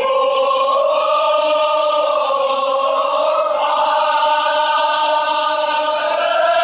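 A group of mourners chanting a Kashmiri marsiya (Muharram elegy) in unison, holding long, drawn-out notes.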